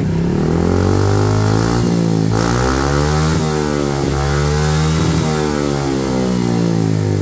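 Honda PCX 160 scooter's single-cylinder engine running loud through an aftermarket slip-on exhaust, revved up and eased off several times so the pitch climbs and drops repeatedly. The exhaust is built to stay mellow at low revs and get loud and raspy higher up.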